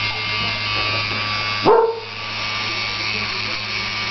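A mini handheld electric fan runs with a steady motor hum and whir. A dog barks at it once, just before halfway through.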